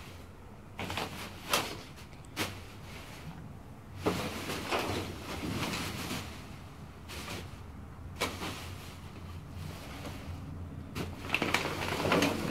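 Plastic trash bags rustling and being shifted on a dumpster's steel floor, with a series of knocks and scrapes against the metal and a louder stretch of rustling and knocking near the end.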